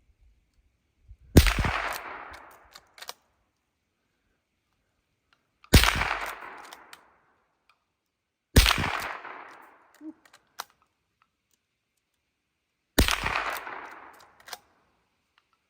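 Marlin 39A lever-action .22 rimfire rifle firing four single shots a few seconds apart, each a sharp crack with a short ringing tail, with a few lighter clicks after most shots.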